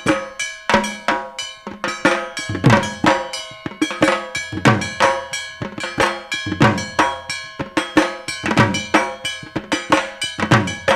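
Dhak, the Bengali barrel drum, played with sticks in a fast, unbroken festival rhythm with heavy accents about once a second. A struck metal plate or bell rings steadily along with it.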